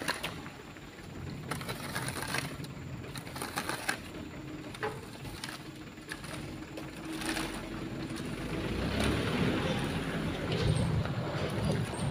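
Heavy truck engine running, with scattered knocks and rattles; the engine grows louder from about eight seconds in.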